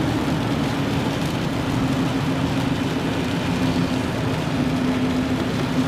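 Car driving, a steady rush of road and engine noise with a low droning hum under it.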